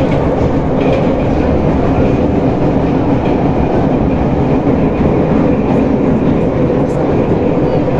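81-717/714.5A subway train running along the track: a steady rumble of wheels on rail with a low, even hum.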